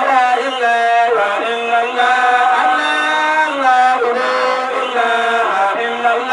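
Men's voices chanting Sufi zikr into microphones, holding long notes and gliding slowly from one pitch to the next.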